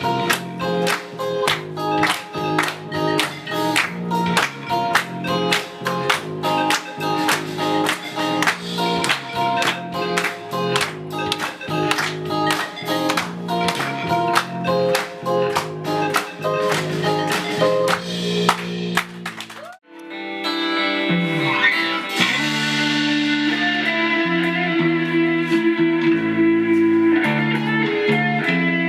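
Guitar strumming chords in a steady, even rhythm; the strumming cuts off abruptly about twenty seconds in. Guitar music then resumes in a different pattern of held, ringing chords and picked notes.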